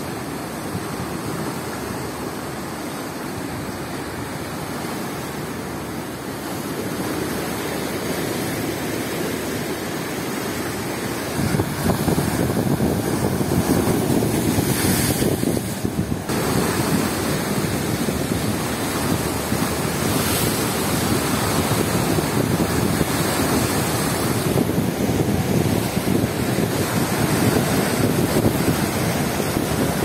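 Rough sea surf breaking and washing over a rock seawall and breakwater, driven by a strong wind that also buffets the microphone. It grows louder and heavier about a third of the way in.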